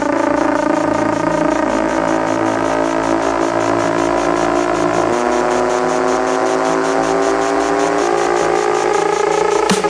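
Techno track in a breakdown: held synthesizer chords with a riser whose tones slowly climb in pitch, building tension. The kick drum comes back in right at the end as the drop hits.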